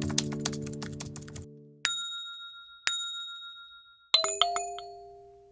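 End of the closing music: a fading guitar chord with a quick run of clicks, then two high bell-like dings about a second apart, and a short cluster of chime notes that ring on and fade out.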